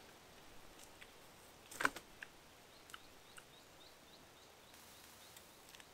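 Quiet bush ambience: a run of short, high, rising bird chirps in the middle, with a few soft clicks and one sharper crack about two seconds in.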